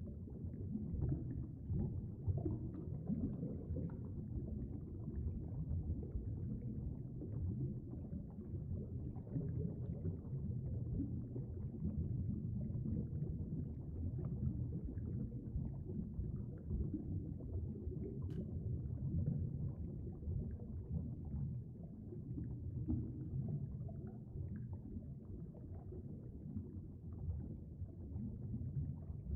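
Steady, muffled low rumble of moving water picked up by an underwater camera submerged in a stream.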